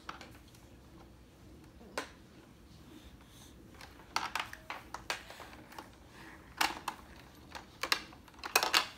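Irregular sharp clicks and taps of a baby's hands on the hard plastic panel and pieces of a toy activity walker, some single and some in quick clusters, the loudest cluster near the end.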